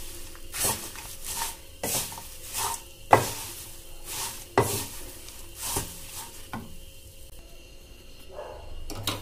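Wooden spatula stirring dry, crisp paper avalakki (thin poha) with its tempering in a non-stick kadai: rustling, scraping strokes about once a second, with a couple of sharper knocks of the spatula against the pan. The strokes thin out about two-thirds of the way through.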